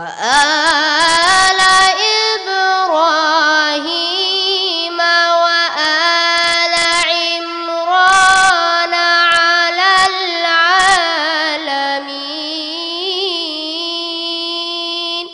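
A 13-year-old boy's voice reciting the Qur'an in melodic tajweed style: one long held phrase with quick ornamental wavers in pitch. It drops to a lower pitch about twelve seconds in.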